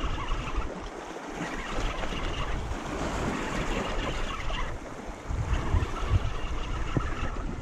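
Wind buffeting the microphone over the wash of the sea, with a spinning reel being wound in as a hooked fish is brought to shore.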